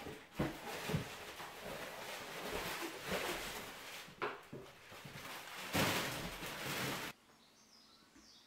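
Plastic packaging film from the flooring packs rustling and crinkling as it is pulled up and gathered, with a few soft knocks. It stops abruptly about seven seconds in, leaving a quiet background with faint bird chirps.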